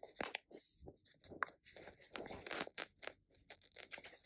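A plastic wet cat food pouch being torn open across its top by hand, a run of short crinkling, tearing rasps.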